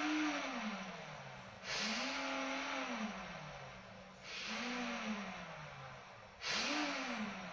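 Boat speed-log paddlewheel being spun four times, about two seconds apart. Each spin starts suddenly with a hiss and a whir that rises briefly, then falls in pitch and fades as the wheel coasts down.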